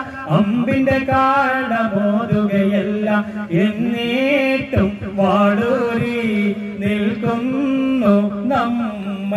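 A man singing a Malayalam Nabidinam devotional song into a microphone: long held notes with wavering, ornamented turns, over a steady low tone.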